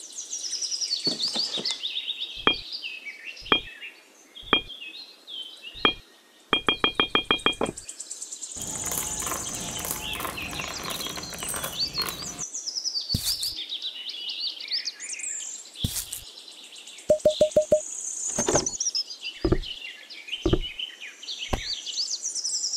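Birds chirping steadily behind the small taps and knocks of handling miniature craft pieces, with two quick runs of clicks. In the middle, a rattling rush of small colored pebbles poured from a little bucket into a miniature brick planter box.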